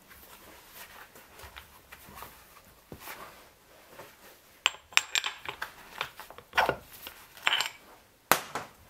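Metal clicks and clinks as a Yamaha XT600 piston is worked off its connecting rod. Faint scattered ticks at first, then a quick run of sharp clinks through the second half.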